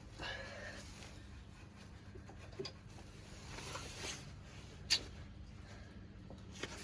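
Quiet work on a dismantled engine with the cylinder head off: a few faint scattered clicks and one sharper click just before five seconds in, from hands and tools on engine parts while the pistons are checked for play.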